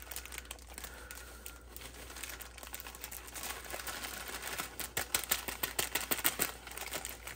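Seasoning-mix packet crinkling and rustling as it is held and squeezed while half its contents are tipped out, with irregular crackles that grow denser and louder about two-thirds of the way through.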